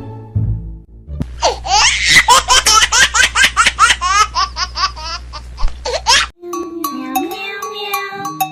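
High-pitched laughter, a quick run of giggles lasting about five seconds, then background music with plucked, mallet-like notes.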